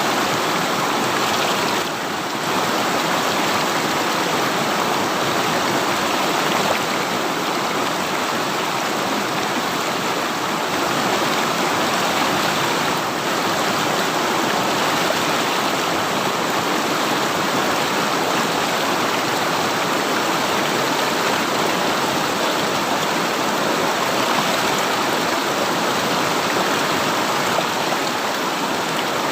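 River water rushing over rocks in a steady, unbroken flow.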